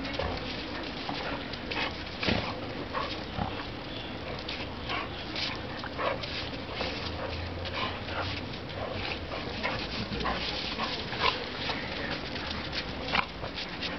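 Two dogs play-fighting, making many short, sharp dog noises at irregular intervals.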